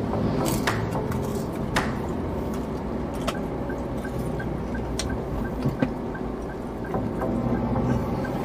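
Steady road and engine rumble inside a moving car's cabin, with scattered wet clicks and smacks of close-up chewing on fried tapioca snacks (cireng). Through the middle there is also a faint, regular ticking, a couple of ticks a second.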